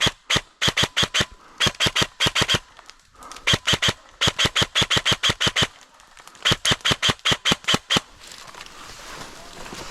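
Airsoft gun firing rapid strings of sharp cracking shots, about five a second, in several bursts with short pauses between them; the firing stops about eight seconds in.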